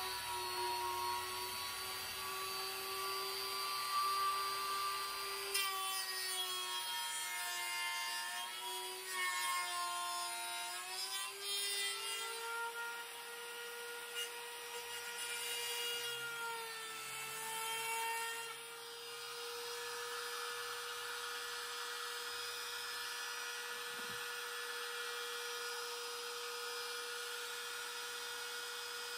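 Compact trim router running while its bit cuts a rabbet in plywood. The motor's pitch sags and wavers under the load of the cut, then settles higher and steadier about halfway through.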